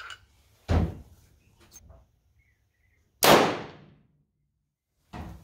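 A single-shot break-action gun is snapped shut about a second in, then a .357 Magnum round fires about three seconds in: one sharp gunshot with a short echoing tail.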